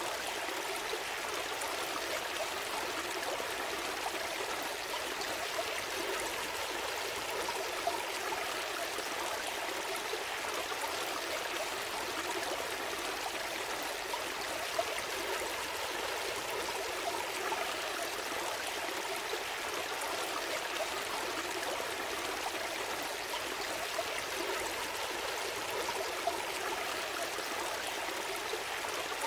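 A gentle stream flowing, a steady babble and trickle of water over stones.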